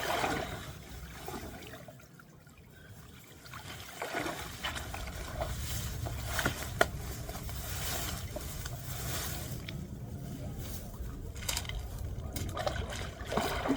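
Shallow river water sloshing and trickling as a heavy bicycle is hauled through it by someone wading, with a couple of sharp knocks about six to seven seconds in.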